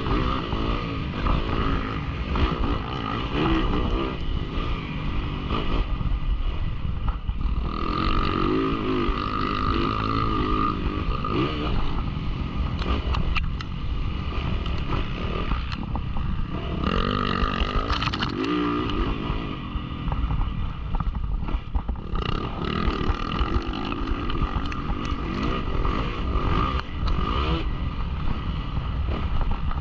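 Yamaha YZ450F single-cylinder four-stroke dirt bike engine revving up and down again and again as it is ridden hard, with the pitch rising and falling through the gears.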